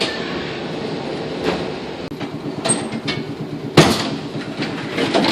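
Interior of an old wooden-bodied tram: steady running rumble and rattle of the car, with a few knocks and one loud clunk about four seconds in.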